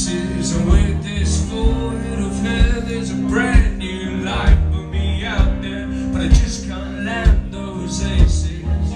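Live rock band playing a song: drums keeping a steady beat under held bass and keyboard notes, with electric guitar and a male voice singing.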